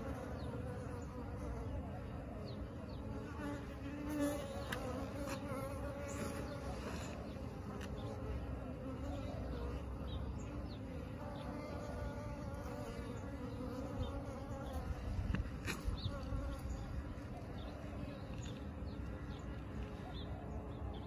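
A large swarm of bees buzzing, a steady dense hum of many wings, with brief louder moments about four seconds in and around fifteen seconds.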